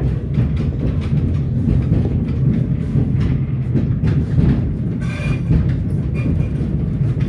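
Interior of a moving train carriage: a steady low rumble of the running gear, with repeated clicks of the wheels over the track.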